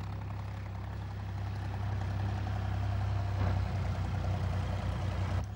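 Farm tractor engine running steadily with a low hum, growing louder as it approaches.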